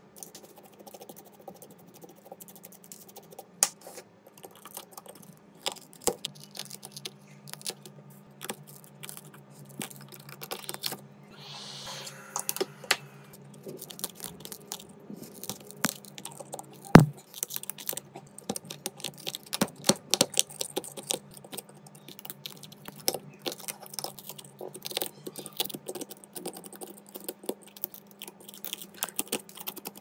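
Irregular small clicks and taps of hand tools working on an iPhone 14 Pro, with one sharper click a little past halfway. There is a brief hiss near the middle, over a faint steady hum.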